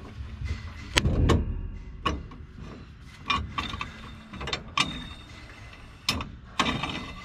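Bungee installation tool knocking and clicking against the landing-gear fitting of an Aviat Husky as it is spun to wind a shock-cord bungee into place. About ten irregular sharp knocks, the loudest about a second in, several ringing briefly.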